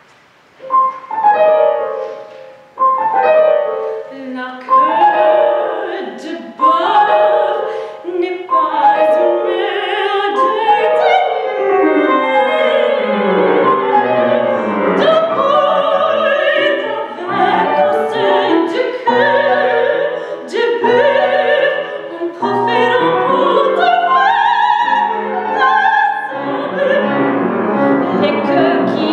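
Soprano singing an art song with grand piano accompaniment, classical recital style. The music starts about a second in, after a near-quiet pause, with short detached opening phrases before the line turns more continuous.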